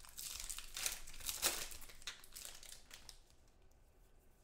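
Foil trading-card pack wrapper crinkling and tearing in the hands for about three seconds, then dying down.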